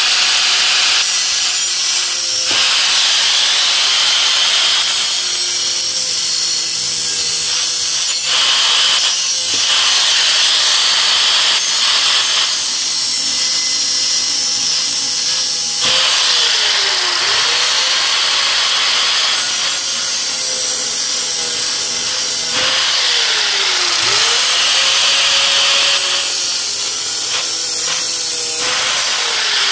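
Angle grinder with a cut-off wheel cutting through a steel frame, running steadily with a loud grinding hiss. The motor's pitch dips briefly twice as the wheel bites into the metal under load.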